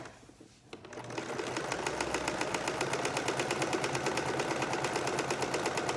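Sewing machine stitching steadily at a fast, even pace through layers of fabric. It starts about a second in, after a brief pause.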